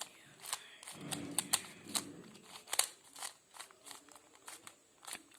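Plastic 3x3 Rubik's cube being turned quickly through an algorithm: a run of irregular sharp clicks and clacks as the layers snap round, a few each second.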